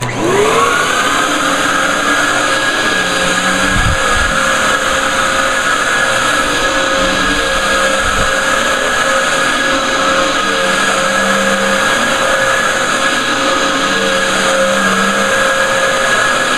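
Dyson DC07 upright vacuum cleaner, a 12 amp motor, switched on. It spins up within the first second to a steady high whine and keeps running, with a couple of low thumps around 4 and 8 seconds in.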